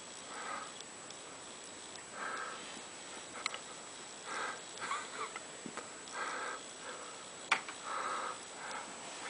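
A sleeping male snoring: a run of short, nasal snoring breaths every second or two, with a couple of sharp clicks in between.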